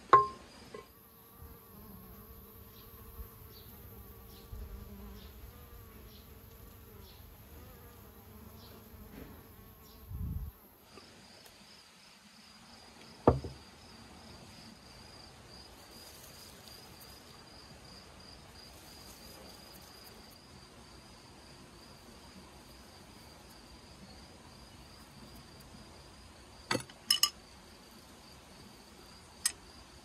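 Insects chirring steadily in a high, even pulse, with a few sharp knocks as ingredients and utensils go into a metal cooking pot; the loudest knocks come right at the start and about a third of the way in.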